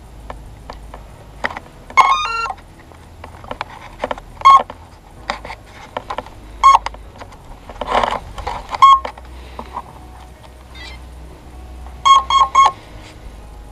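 Electric RC plane's ESC sounding its beep tones through the brushless motor as the 3S LiPo battery is connected. A quick run of startup tones comes first, then single beeps about every two seconds, and near the end three short beeps and one longer beep, the usual cell-count and arming signal. Light clicks of handling come between the beeps.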